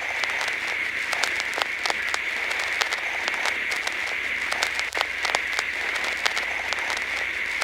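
Broadcast-style static: a steady hiss with frequent, irregular crackles.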